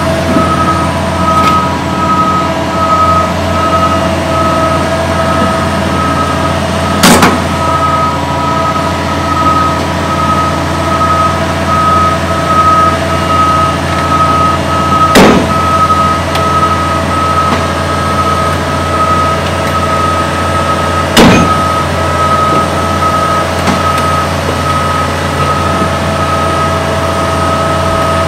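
Heavy-haulage truck's diesel engine running steadily with a warning beeper pulsing rapidly and evenly over it as the low-loader carrying the excavator moves at a crawl. A few sharp clunks come through, three of them spaced several seconds apart.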